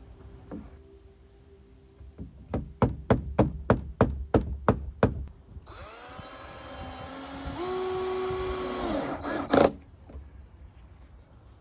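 A run of about ten sharp knocks on wood, about four a second, then a cordless drill motor running: its pitch rises as it winds up, steps higher and holds steady, then stops, followed by one loud knock.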